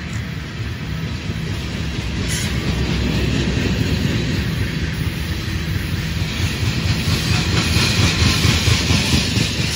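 Freight train of covered hopper cars rolling past close by: a steady rumble of steel wheels on the rails, growing louder toward the end.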